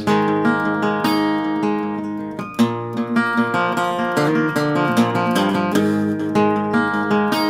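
Solo cutaway acoustic guitar playing an instrumental passage of picked chords, each chord ringing on into the next.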